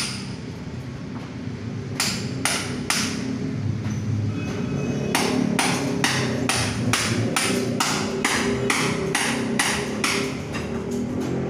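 Hand hammer striking repeatedly. Three blows come about two seconds in, then after a pause a steady run of blows, about two to three a second, from about five seconds in.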